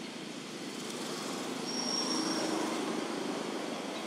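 Steady outdoor background noise that swells slightly toward the middle. A brief high whistle-like tone comes about two seconds in.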